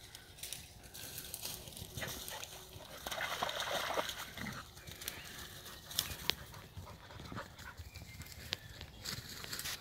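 Two German hunting terriers (Jagdterriers) play-fighting, with a loud stretch of growling and snarling about three seconds in, then a couple of sharp snaps around six seconds.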